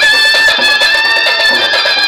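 Live folk dance music: a high melody instrument slides up and holds one long note for about a second and a half, over a quick, steady drum rhythm.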